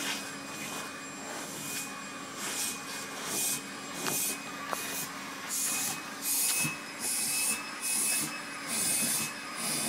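Vacuum cleaner running with a steady hum while its nozzle is drawn through a cat's fur. The suction hiss surges in repeated bursts, more than once a second, as the nozzle moves along the coat.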